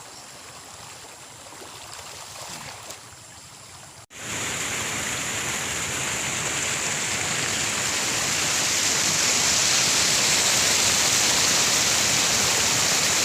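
Running water, then after a sudden cut about four seconds in, a much louder steady rushing hiss that swells slightly and holds.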